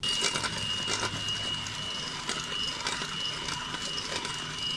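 Electric hand mixer running steadily, its beaters whipping Chantilly cream mix with cold milk in a stainless steel bowl. A steady high motor whine sits over the whirring of the beaters.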